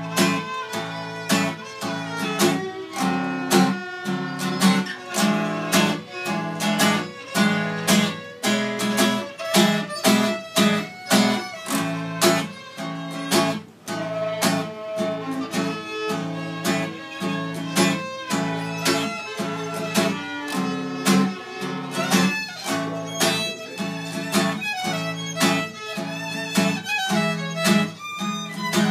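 Two fiddles playing a tune together over a steadily strummed acoustic guitar.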